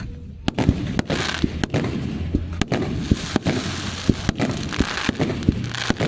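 Aerial fireworks bursting in quick, irregular succession: many sharp bangs, a few of them loud, with crackling between them.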